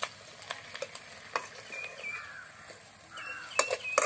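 Mint, curry leaves, coriander, green chillies and spinach sautéing in oil in an aluminium pot over a wood fire. A faint sizzle runs under a metal spoon scraping and knocking against the pot, with sharper knocks near the end.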